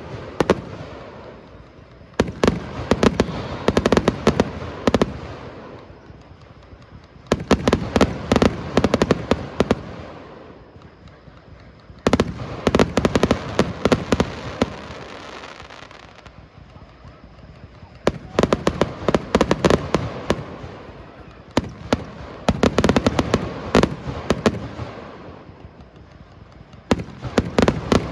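Fireworks display: volleys of aerial shells bursting in rapid clusters of sharp bangs, a new volley every four to five seconds, each one trailing off before the next.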